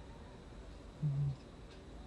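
Siberian cat snoring in its sleep: one short, low snore about a second in.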